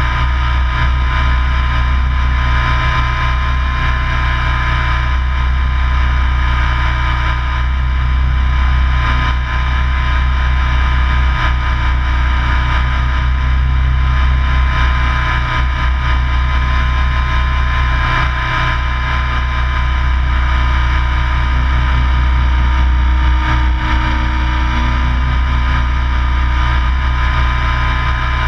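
Radio-controlled helicopter's motors and rotors running steadily, heard from the camera it carries: a constant whine over a deep hum, its pitch wavering a little now and then.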